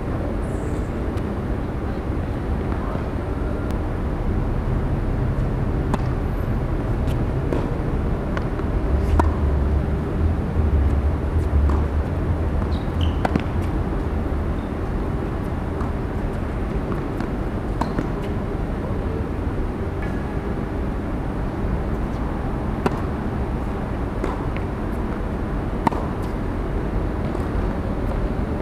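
Tennis rallies on a hard court: sharp pops of a tennis ball struck by rackets, one every second or two, over a steady low rumble of city traffic that swells for a few seconds midway.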